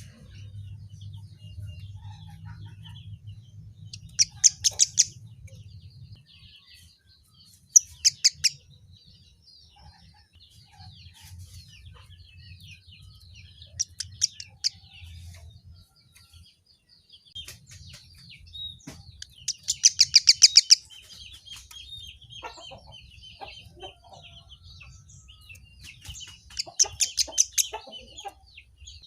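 Kemade (emprit kaji, white-headed munia) calling: a loud burst of rapid, high, chattering notes every few seconds, about five in all, with soft thin twittering between them.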